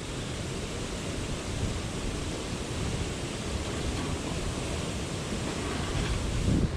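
Wind buffeting an outdoor camera microphone: a steady rush of noise with an unsteady low rumble underneath.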